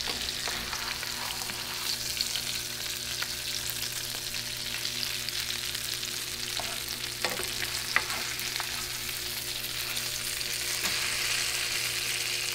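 Floured cod fillets frying in melted butter and oil in a nonstick pan, freshly turned to brown the second side: a steady, even sizzle. A few faint clicks sound over it past the middle.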